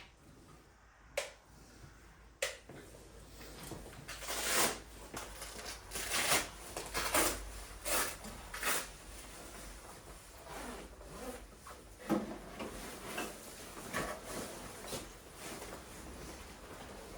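Two sharp knocks, then a run of irregular rustling and scraping handling noises with occasional knocks.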